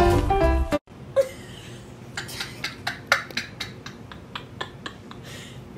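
Background music cuts off abruptly about a second in. A quiet room follows, with a string of faint, irregular clicks and ticks.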